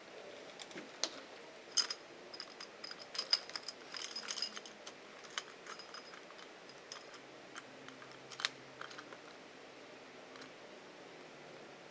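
Faint light clinking and jingling of small metal objects, a scatter of sharp little clicks with a high ring, busiest about two to five seconds in and with one more sharp clink near the end.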